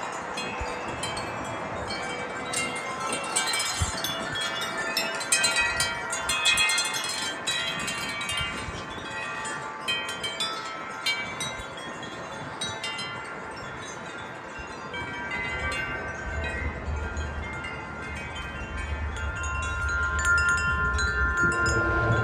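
A collection of wind chimes ringing in gusty wind, many tubes struck at once so their tones overlap and sustain. The strikes come thick in the first half and thin out in the middle; wind rumbles on the microphone over the last several seconds as a new gust sets more chimes ringing.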